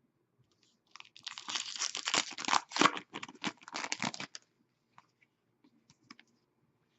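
A hockey-card pack wrapper being torn open and crinkled: a quick run of crackling tears lasting about three seconds, then a few light clicks.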